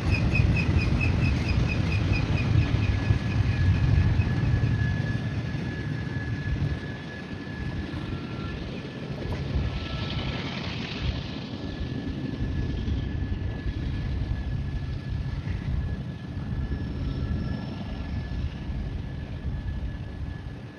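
Double-stack container freight train rolling by: a heavy wheel rumble with a rapid, regular ringing pulse, about four a second, over the first few seconds. About six seconds in it drops to a quieter, steady rumble as the train draws away, with a thin steady high tone.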